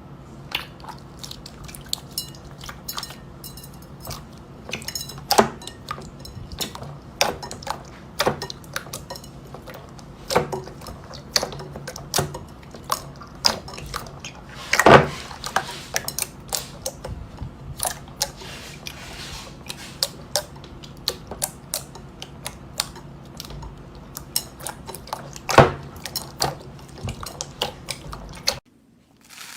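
Slime being squeezed and poked by hand, making irregular sticky clicks and pops over a steady low hum. It cuts off abruptly near the end.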